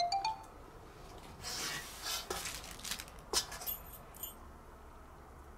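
A rising chime jingle finishes right at the start. About a second and a half in, a thin aluminium cooling pan for cats clinks and rattles as it is handled, with a few sharp metallic knocks that ring briefly, then dies away to quiet room tone.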